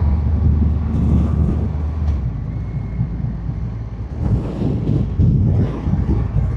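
Triumph Rocket 3 R Storm's 2.5-litre inline-triple engine running steadily under throttle, then dropping away about two seconds in, leaving an uneven low rumble and wind buffeting on the microphone.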